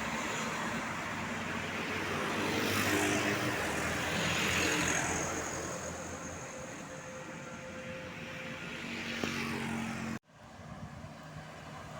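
Road traffic: motor vehicles driving past, one passing close about four to five seconds in, over a steady engine hum. The sound cuts out abruptly about ten seconds in and comes back quieter.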